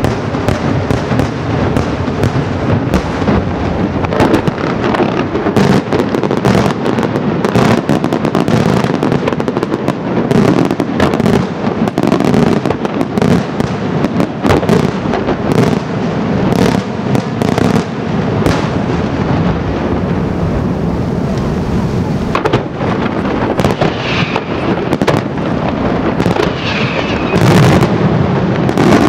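Daytime fireworks: a dense, continuous barrage of bangs and crackling as shells and firecrackers burst into white smoke puffs overhead, growing louder near the end.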